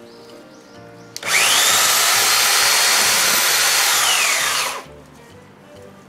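Toshiba electric chainsaw run in one burst of about three and a half seconds. Its motor whine climbs as it starts, holds steady, then falls away as it stops.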